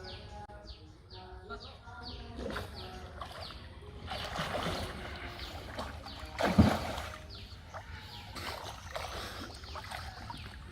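Water splashing and sloshing in irregular strokes, with one louder splash about six and a half seconds in.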